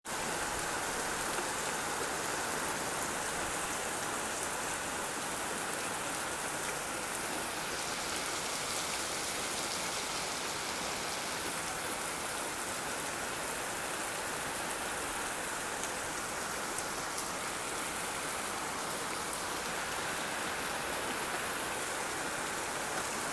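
Steady hurricane rain falling through the trees, an even hiss with faint scattered drop ticks.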